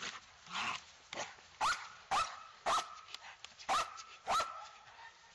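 Young Malinois-cross dog barking five times in sharp, short barks, lunging at a helper who holds a bite pillow out of reach during protection training. A rougher sound comes before the barks.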